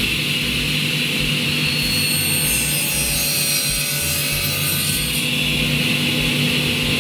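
Table saw running steadily, its blade cutting a shallow lengthwise kerf in a wooden sanding-drum blank. The cut adds a higher hiss from about two to five seconds in.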